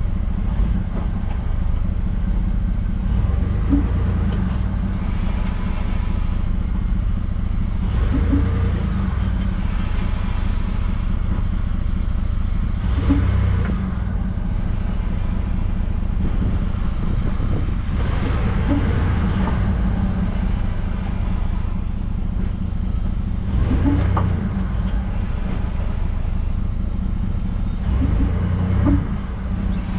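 Ford F-150 pickup running with a steady low rumble, and a short noise recurring about every five seconds, six times. This is the mystery noise heard each time the truck accelerates from a stop, which the owner suspects comes from the driveshaft's slip spline compressing.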